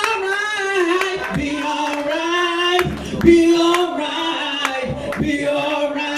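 A woman singing a gospel song in full voice, holding long notes.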